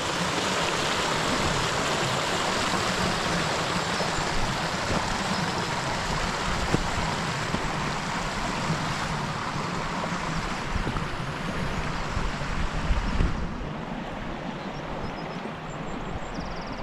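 Mountain stream rushing over rocks, a steady hiss of running water; the hiss thins and drops a little about 13 seconds in.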